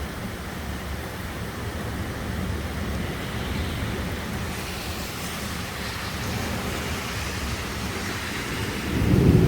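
Steady rush of heavy rain and wind in a thunderstorm, the hiss swelling in the middle. Thunder starts to rumble near the end.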